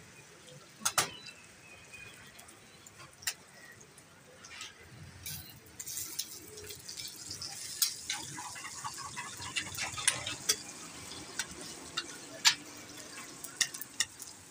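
Parathas frying on a large flat steel griddle (tawa): a steady sizzle that gets louder about five seconds in. Sharp metallic clicks and clinks of steel tongs tapping the griddle and stirring egg mixture in a steel bowl run through it.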